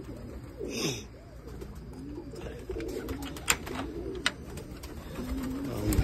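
Domestic pigeons cooing in a loft, low rolling coos overlapping one another, with scattered sharp clicks. Right at the end a sudden loud low flutter as a pigeon flies up close.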